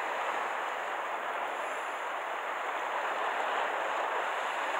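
Steady rushing wash of the sea against a rocky shore, an even hiss with no distinct splashes or breaks.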